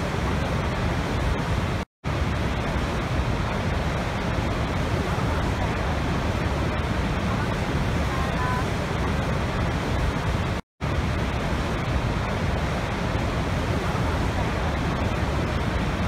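Deep, even rushing of Niagara's Horseshoe Falls heard from the brink: heavy water pouring over the crest and churning rapids. The sound cuts out completely for a split second twice, near two seconds and near eleven seconds in.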